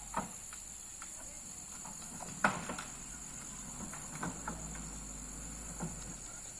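Vehicle engine running low and steady, with scattered knocks and clunks; one sharp knock comes about two and a half seconds in.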